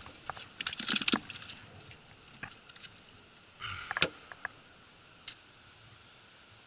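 Hard plastic cooler being handled and its lid opened: a quick cluster of clicks and rattles about a second in, then a short scuff and a knock about four seconds in.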